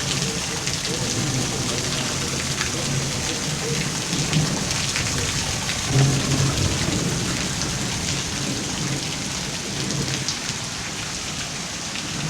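Heavy rain falling in a thunderstorm, a steady hiss dotted with drops striking, under a low rumble that swells about six seconds in.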